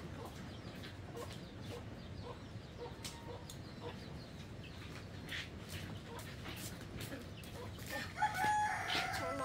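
Chickens clucking, with a rooster crowing once about eight seconds in, the loudest sound here.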